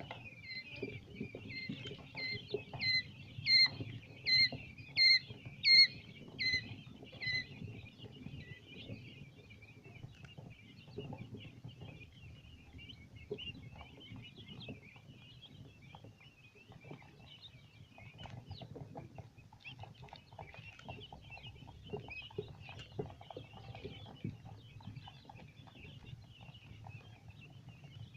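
A brood of four-day-old quail chicks peeping continuously as a dense, high chorus. During the first seven seconds or so, one loud peep repeats about every 0.7 s over the chorus. A low hum runs underneath.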